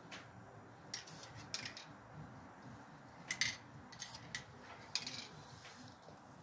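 Aerosol can of flat camouflage spray paint fired in light puffs: about eight brief hisses at irregular intervals.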